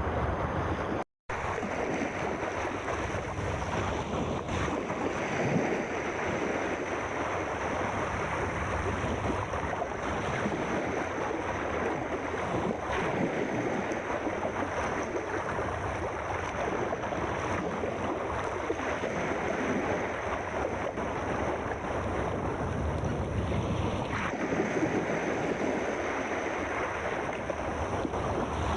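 Steady wash of sea waves and surf, with slow swells; the sound cuts out completely for a split second about a second in.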